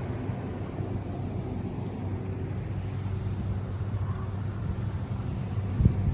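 Steady low vehicle rumble with a constant low hum, and a single thump near the end.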